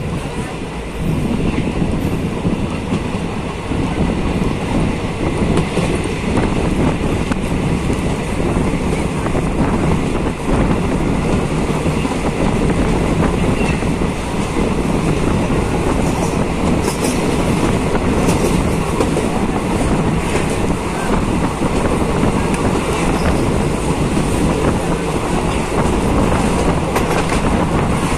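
A train running, a steady loud noise with a few sharp clicks in the second half.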